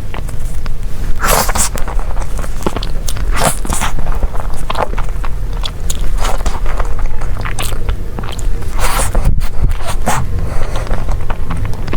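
Close-miked eating of a dessert: bites and chewing with crisp crunching bursts every second or two.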